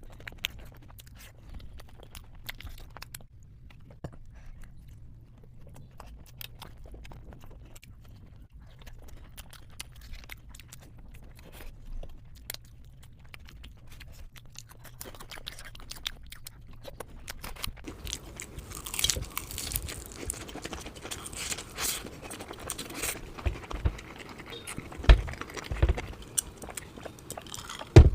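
Eating sounds of someone chewing momos in spicy jhol gravy. Sparse small mouth clicks at first, becoming denser and louder about eighteen seconds in, with a couple of low knocks near the end.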